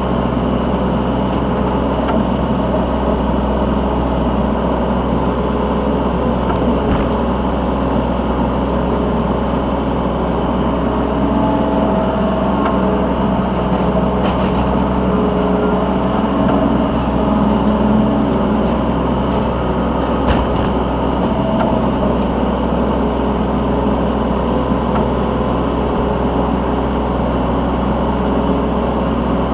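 Yanmar B3Σ 3-ton mini excavator's diesel engine running steadily under working load, heard from the operator's seat, with a few faint knocks along the way.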